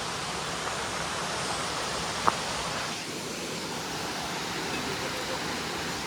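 Rushing water, a steady even hiss. A single sharp click sounds a little over two seconds in.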